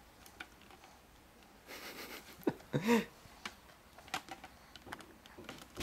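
A baby making a short breathy blowing sound, then a brief voiced coo about three seconds in, among light scattered clicks and taps from the kitchen strainer he is handling.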